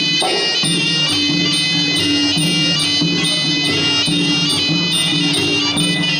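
Traditional Khmer boxing ring music: a shrill, reedy sralai oboe plays a fast-changing melody over drums.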